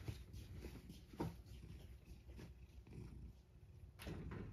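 A domestic cat purring faintly and steadily, with a single soft knock about a second in and a brief rustle near the end.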